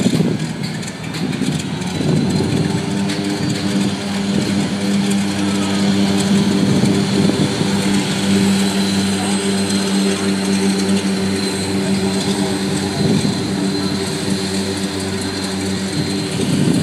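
Floatplane's propeller engine at takeoff power on its takeoff run across the water: a steady drone with a held pitch that settles in about two seconds in. It is heard as a video played back through a hall's loudspeakers.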